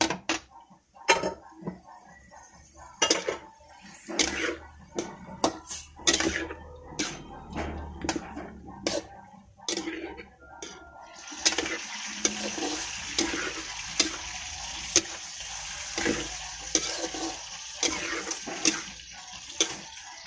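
A utensil scraping and knocking against a pan as pieces of pork are stirred, with repeated sharp clicks. About halfway through a steady sizzle of the pork frying comes in and carries on under the stirring.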